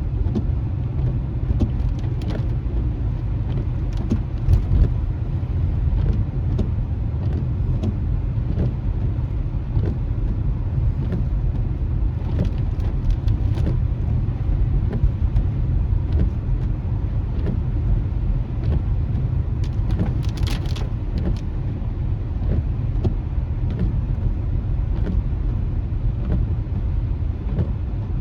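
Steady low road and tyre rumble inside a car's cabin while driving on rain-wet streets, with scattered light ticks and clicks and a short burst of them about twenty seconds in.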